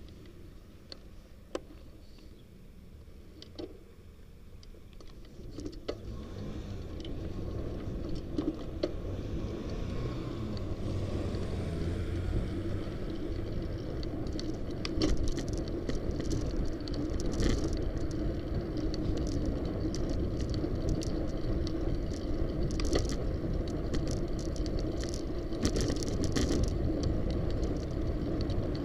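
Bicycle riding on city pavement: low road and wind rumble that builds from about six seconds in as the bike gathers speed, with frequent light rattles and clicks from the bike over bumps in the road.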